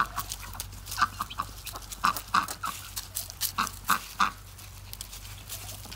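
Chickens clucking in a run of short, sharp, irregular calls, thickest between about one and four and a half seconds in.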